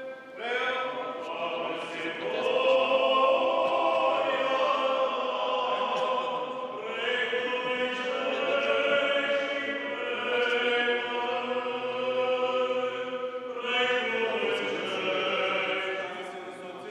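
Church choir singing Orthodox liturgical chant in three long, sustained phrases.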